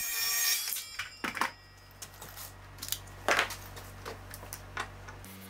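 Circular saw spinning down at the end of a cut, its high whine fading out within the first half second. Then a few scattered clicks and knocks as the saw and a plastic spring clamp are set down on a wooden workbench.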